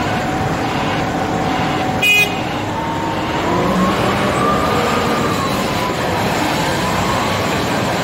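Volvo L350H wheel loader's diesel engine working hard, its pitch rising and then falling again between about three and six seconds in as it revs. A short, loud horn toot sounds about two seconds in.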